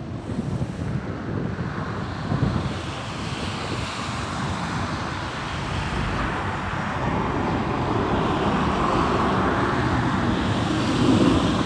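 Airbus A400M Atlas's four turboprop engines as it flies by, a steady rushing noise that slowly grows louder, with wind buffeting the microphone.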